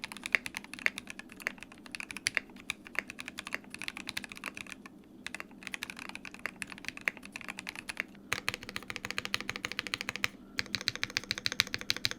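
Typing on a Qwertykeys QK60 60% gasket-mounted custom mechanical keyboard with SP Star Marble Soda Melon switches, an aluminum plate and no foam: steady runs of keystrokes with two short pauses and a quicker run in the last few seconds. The unfoamed build sounds a bit thin, without any noticeable hollowness.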